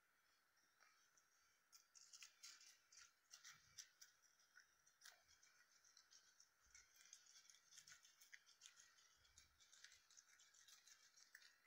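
Faint, rapid crisp clicking of guinea pigs chewing spinach leaves, starting about two seconds in.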